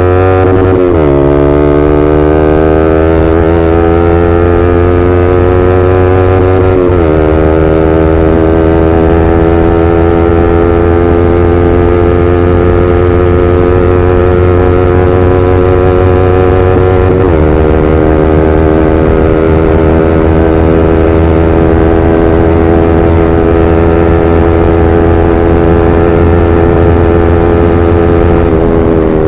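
Yamaha R15M's 155 cc single-cylinder engine through an SC Project full-system exhaust, pulled hard up through the gears. The loud exhaust note climbs in pitch in each gear and drops sharply at the shifts about one, seven and seventeen seconds in, then falls near the end as the throttle closes.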